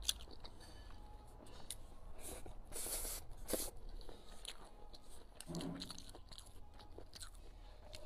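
Close-miked chewing of a mouthful of fried squid and chili peppers with rice: a string of wet mouth clicks and short crunches.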